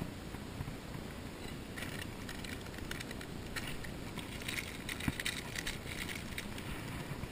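Plastic food packet crinkling as it is cut open with a knife and its contents are poured into a metal pot, a cluster of small crackles and clicks about two seconds in that lasts several seconds, over a steady low rush.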